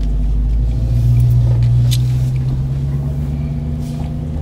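Car engine running, heard from inside the cabin as a steady low hum that swells slightly about a second in. A few faint clicks sit on top of it.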